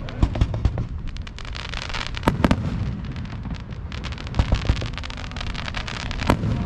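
Aerial fireworks going off close by: a steady low rumble of launches and bursts, studded with many sharp crackles and pops, and several louder bangs, two of them in quick succession about two and a half seconds in.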